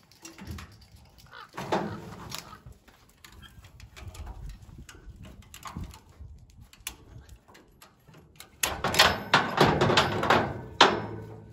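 Ratchet tie-down strap being undone on a car trailer: scattered clicks and knocks of the ratchet and hooks, then, late on, a louder spell of rasping and clicking as the ratchet is opened and the webbing is pulled loose.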